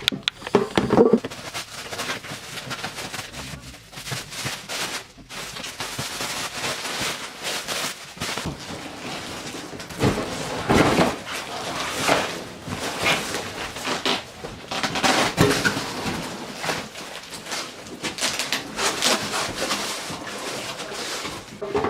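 A parcel being torn open by hand: packaging ripping, rustling and crackling in irregular bursts.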